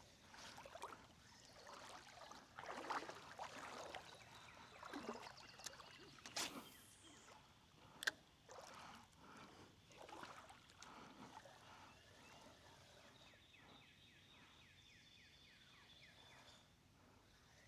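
Faint outdoor ambience with scattered soft rustles and clicks and one sharper click about eight seconds in. Near the end comes a faint run of quick, evenly spaced ticks.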